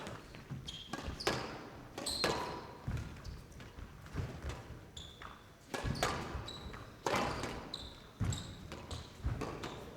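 Squash rally: the ball cracks off rackets and walls about once a second, with shoes squeaking on the court floor between strokes.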